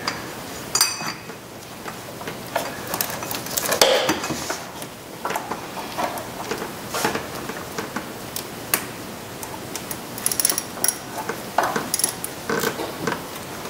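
Irregular metal clinks and clicks of a 13 mm socket on a short extension being fitted through a pulley onto bolts and turned.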